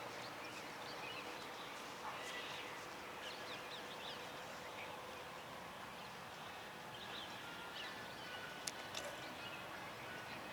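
Faint outdoor ambience with scattered short bird chirps, and one sharp click near the end.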